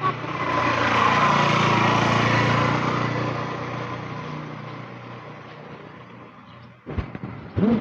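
A small-engined motor vehicle passing close by: its engine and road noise swell over about a second, hold for a couple of seconds, then fade away. A click and a brief rising pitched call come near the end.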